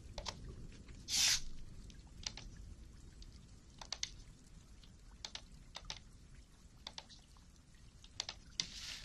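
Soft, scattered ASMR clicks and light taps, with a short hissing swish about a second in and another near the end.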